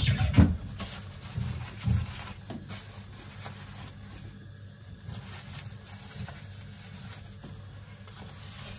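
A few household knocks and handling noises in the first two seconds, the loudest at the very start, then a low steady hum with occasional faint ticks.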